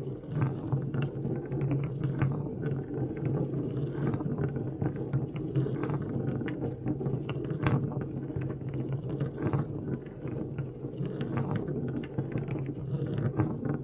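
Harsh electronic noise from an Alga Electronic noise device: a dense, steady low drone with a constant irregular crackle of clicks over it.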